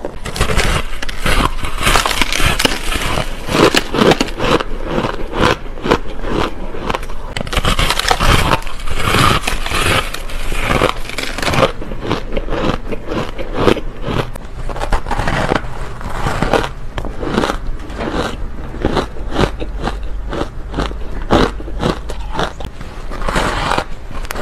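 Crunchy, powdery frozen ice (freezer-frost style) being bitten and chewed: a dense, continuous run of crackling crunches, bite after bite.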